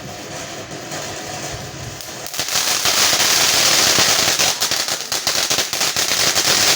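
A consumer firework goes off: a loud hissing spray starts suddenly about two seconds in. Rapid crackling pops join it about halfway through and keep going.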